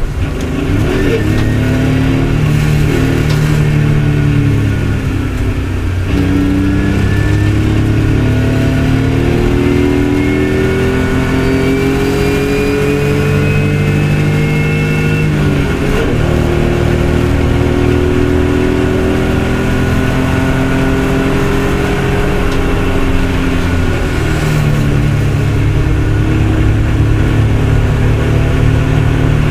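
BMW saloon race car's engine, heard from inside the stripped cabin, pulling hard under acceleration: its pitch climbs for several seconds at a time and drops sharply at each of about three gear changes.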